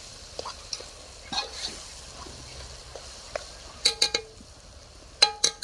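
Spoon stirring food in a metal pot over a wood fire, with light scraping and a soft sizzle. About four seconds in and again near the end, the spoon clinks sharply against the pot a few times, each clink ringing briefly.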